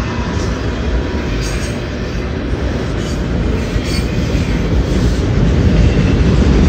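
Freight train of autorack cars rolling past: a steady low rumble of steel wheels on rail with a few faint clanks, growing slightly louder near the end.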